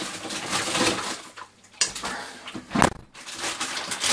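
Rummaging in a fridge-freezer and taking out a plastic bag of frozen fries: rustling and clattering, with a sharp click a little under two seconds in and a heavy thud about three seconds in.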